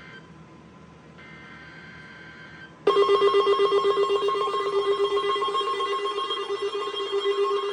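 NOAA Weather Radio Emergency Alert System test on a weather alert receiver: the last buzzy data bursts of the SAME header, then about three seconds in a loud, steady alert tone begins that pulses rapidly.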